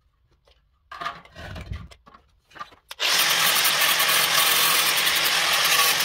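A few knocks and scrapes about a second in, then an electric angle grinder starts and runs steadily and loud, its disc grinding into the steel edge of a notched trowel held on a block.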